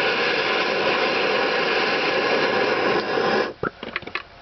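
Bernzomatic TS4000 hand torch flame hissing steadily as it heats a rusted, seized nut, then shut off suddenly about three and a half seconds in, followed by a few light clicks.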